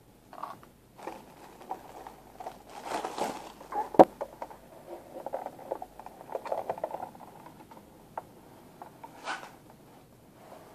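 Hands handling a hard plastic popcorn-box toy playset as it is opened, with rustling plastic wrap and many light plastic clicks and taps. One sharp click about four seconds in is the loudest sound.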